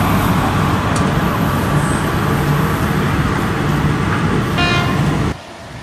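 A train passing close by at speed: a steady loud rumble and wheel-on-rail noise, with a brief high-pitched tone about four and a half seconds in. The noise cuts off suddenly near the end.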